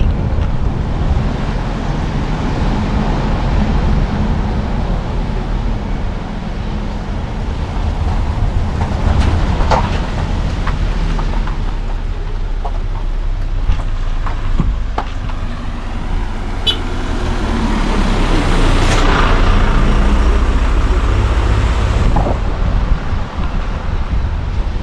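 Car driving along: a steady low rumble of engine and tyres on the road, with a few short knocks and a broad swell of noise about three-quarters of the way through.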